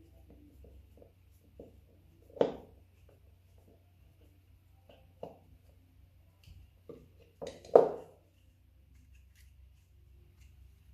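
Hands working on the plastic housing of a car side-mirror adjustment motor during reassembly: scattered light clicks and rubbing, a sharp knock about two and a half seconds in and a louder double knock about three-quarters of the way through.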